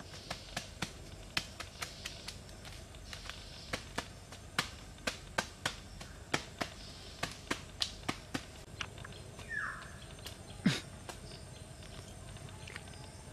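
Irregular sharp snaps and crackles of woven banana-leaf strips being pressed and handled, about two or three a second. A short falling bird call comes near the middle, then one louder crack. After that only the faint background remains.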